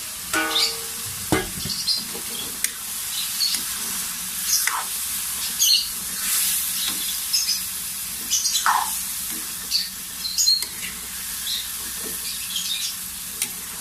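Marinated pork sizzling in hot oil in a wok as it is stirred, the metal spatula scraping against the pan over and over. Near the start, a metal bowl rings briefly and clanks as it is set aside.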